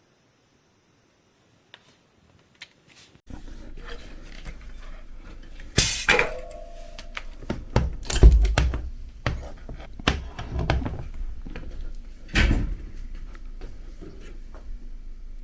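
Hand work on a bicycle in a workshop: tools and bicycle parts handled with many light clicks and knocks, and a few louder metal clanks, one of which rings briefly. The first seconds are almost silent, and then a low steady hum sets in.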